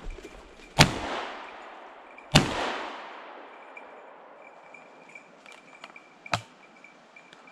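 Two shotgun shots about a second and a half apart, each echoing away through the forest for about a second. A shorter, sharp knock follows near the end.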